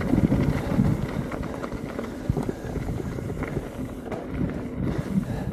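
Mountain bike rolling down a dirt trail: a steady low rumble of tyres and air, with scattered clicks and rattles from the bike over bumps.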